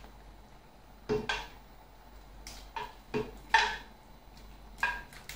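A flat dish knocking and scraping against the rim of a metal cooking pot as chopped artichokes are tipped and tapped off it into the stew. There are several sharp knocks, each with a brief ring, at irregular intervals.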